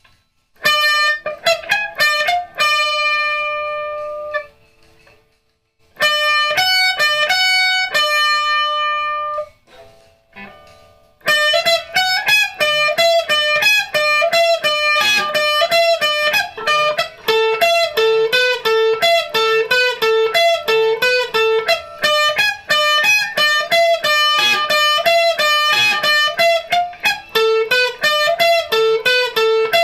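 Electric guitar playing a rhythm part. Two short phrases of chords ring out and die away, each followed by a brief gap. Then a steady, unbroken run of quickly picked notes follows in a repeating pattern.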